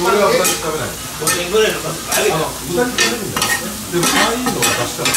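Metal spatulas scraping and tapping on a hot iron teppanyaki griddle as pork, cabbage and vegetables are tossed and fried, over a steady sizzle. The scrapes come about twice a second.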